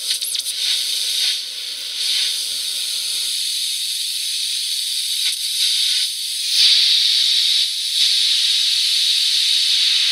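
Shrill, hissing receiver noise from a regenerative receiver, played at ear-piercing volume through a small loudspeaker driven by an 8002A audio amplifier chip. A few brief whistles come near the start, and the hiss gets louder about two-thirds of the way in.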